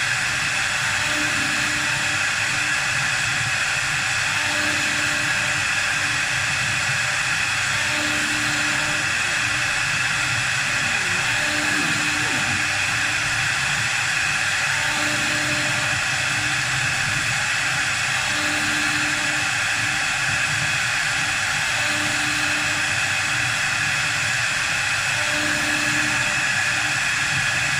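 A 4-axis CNC wood lathe running as it turns a sofa leg: a steady machine hiss with a high whine. A faint low hum comes back about every three and a half seconds.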